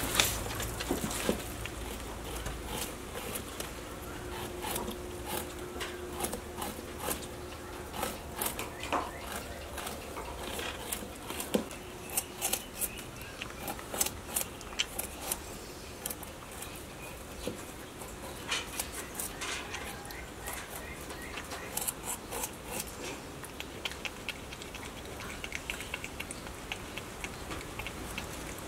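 Crested porcupine chewing and gnawing its food at close range: a long run of irregular crunching clicks, thicker in some stretches than others.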